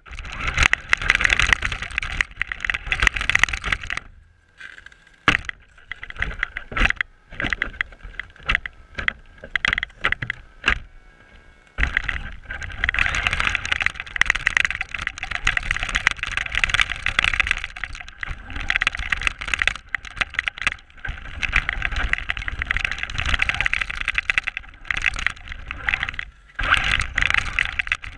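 A Traxxas RC car's motor and drivetrain whining in throttle bursts as the car drives over snow, picked up by a camera mounted on the car. Between about 4 and 12 seconds the whine comes in short choppy bursts with knocks and rattles, then runs on more steadily.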